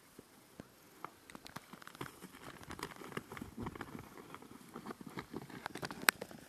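Two fighting bulls' hooves stamping and scuffing on dry grassy ground as they shove head to head, a busy run of irregular knocks and scrapes. One sharp, loud knock comes near the end.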